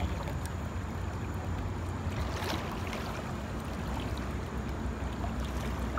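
River water sloshing and splashing around a person wading waist-deep, with a few sharper splashes a couple of seconds in, over a steady low rumble.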